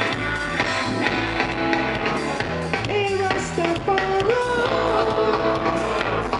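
Live reggae band playing through a festival PA, with bass, drum kit and guitar keeping a steady beat. From about three seconds in a voice sings held notes that slide between pitches over the band.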